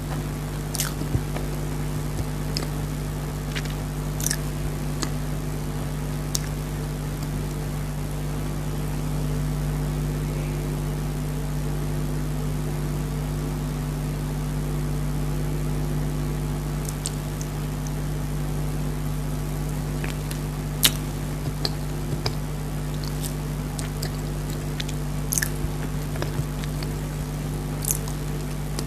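Eating sounds from chocolate dry-fruit cake, with scattered short clicks and crunches of biting and chewing, over a steady mechanical hum.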